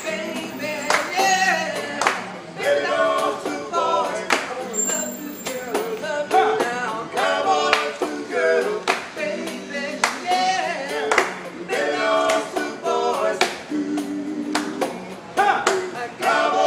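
Music: a song with singing over a sharp, steady percussive beat.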